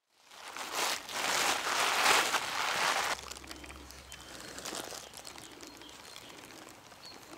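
Loud rustling noise for about three seconds that cuts off abruptly, then quieter close rustling with scattered small clicks.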